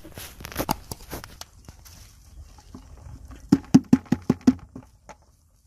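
Hand smacking the bottom of an upturned plastic bucket, about six quick knocks in just over a second, to shake the last prawns out onto the pile. Lighter rustling and clicks come earlier.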